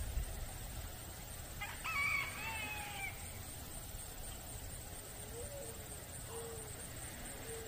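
A rooster crows once, a wavering call of about a second and a half. A few short, low calls follow about a second apart.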